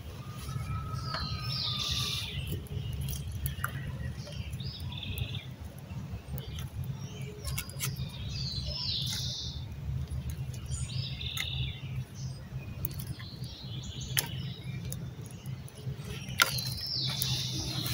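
Birds calling over and over, a short high phrase every few seconds, with a few sharp snaps and crackles of thin dry sticks as they are fed onto a small campfire. A steady low rumble runs underneath.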